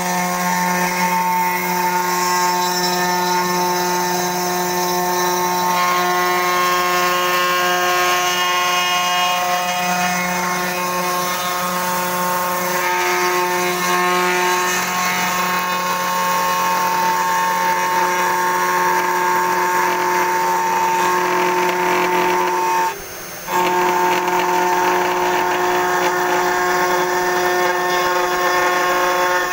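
500 W CNC router spindle with a 3 mm end mill, milling into a coconut shell: a steady motor whine with the rasp of the bit cutting shell and husk fibre. The level dips for a moment about three-quarters of the way through, then the same sound resumes.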